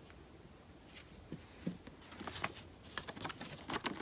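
Quiet rustling and light clicks of a cardboard photo frame and clear plastic film strips being handled, the small sounds getting busier about a second in.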